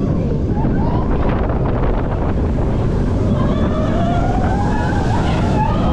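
Wind buffeting the microphone over the steady rumble of a Vekoma mine train coaster running along its track, with a rising whine in the second half.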